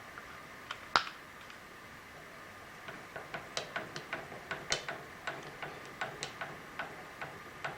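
A run of light metallic clicks and ticks, irregular, a few each second, from the head being rotated by hand on the milling setup. One sharper click comes about a second in.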